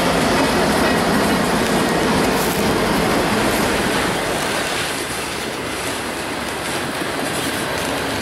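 Freight train rolling past at close range: diesel locomotives and then autorack cars, a steady noise of wheels on rail that eases a little after about five seconds.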